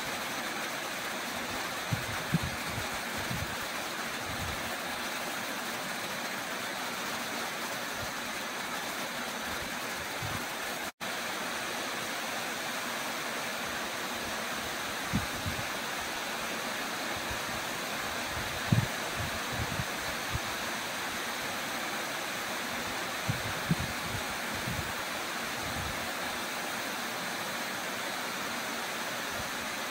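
Small waterfall pouring into a rock pool: a steady, even rush of falling water. A few brief low bumps break in now and then, and the sound drops out for an instant about eleven seconds in.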